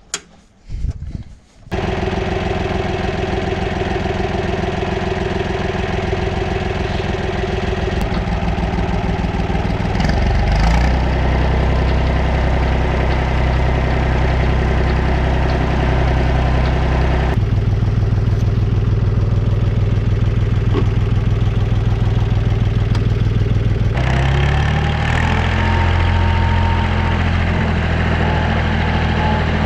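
Allis-Chalmers 5040's three-cylinder diesel engine running. It comes in abruptly about two seconds in, after a near-silent start. It picks up speed about ten seconds in and again near twenty-five seconds, with other abrupt shifts in its tone between.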